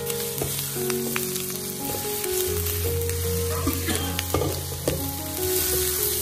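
Green peppers sizzling in hot oil in a nonstick wok while a spatula presses and turns them, with short scrapes and taps of the spatula against the pan. The peppers are being fried until their skins blister.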